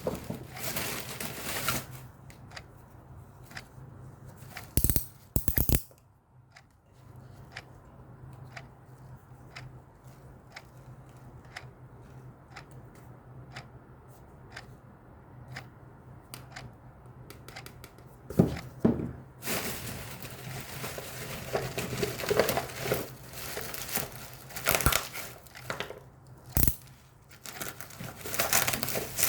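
Packaging being handled, torn and crinkled in bursts, with a quieter stretch of small clicks between them.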